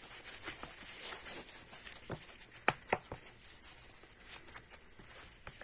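Faint rustling of a fabric baseball cap being bent and turned in the hands, with a few light clicks about two to three seconds in.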